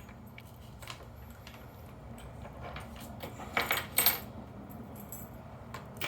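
Small metallic clicks and clinks of a Paclock 90a Pro padlock being disassembled by hand, its steel parts and the metal tools (follower, shim) knocking together. A short cluster of louder clinks comes about three and a half to four seconds in.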